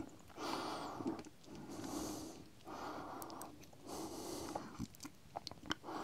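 A man breathing in and out through the nose close to the microphone, soft and regular, about once a second. A few faint ticks come near the end.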